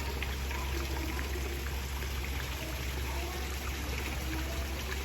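Running water trickling steadily, over a steady low hum.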